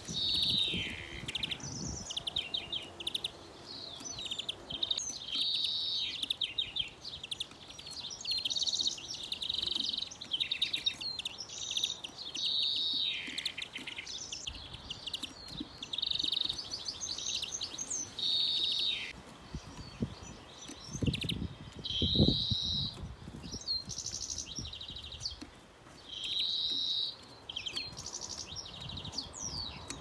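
Finches singing almost without pause: quick high twittering phrases and buzzy trills, one after another. A few low thumps come about two-thirds of the way through.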